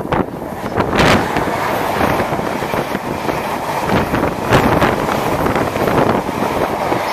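Strong gusting wind buffeting the microphone: a loud, continuous rushing that swells and dips with the gusts.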